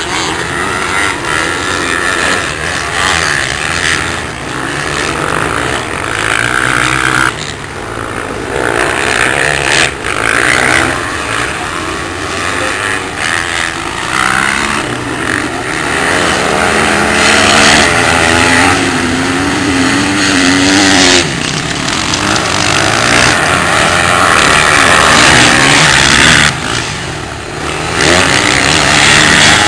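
Several motocross dirt bikes racing around a dirt track. Their engines rev up and down, the pitch rising and falling as the riders accelerate and back off.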